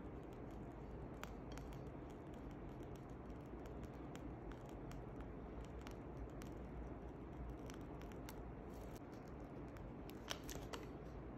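Faint scattered clicks over a low steady hum, with a quick cluster of sharper clicks about ten seconds in.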